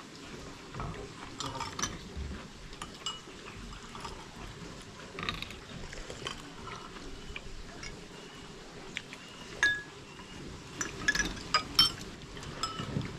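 Cutlery clinking against plates and bowls during a meal: scattered light clinks and taps, with a quicker run of them in the last few seconds.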